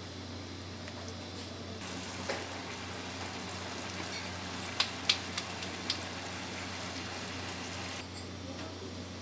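Hot oil sizzling in a small pan as a starch-coated block of food is deep-fried. The sizzle sets in about two seconds in and eases off near the end, with a few sharp clicks about halfway through.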